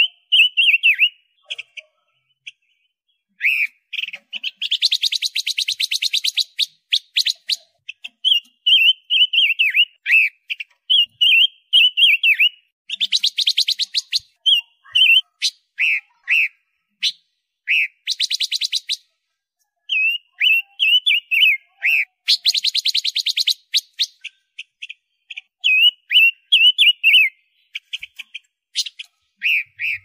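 Silver-eared mesia singing: short warbled, whistled phrases alternating with stretches of fast, dry, rattling chatter, repeated over and over with brief pauses.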